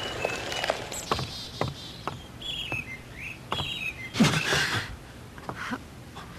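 Small birds chirping in short notes and quick rising whistles, over footsteps and scattered light taps, with a brief louder rustle about four seconds in.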